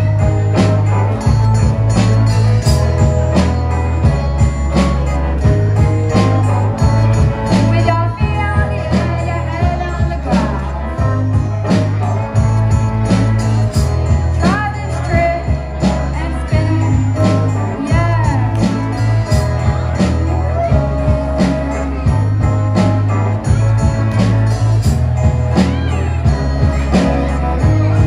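Live rock band playing: two electric guitars and a bass guitar over drums, with a strong bass line moving between notes and a steady beat. A few bending notes come in the middle of the passage.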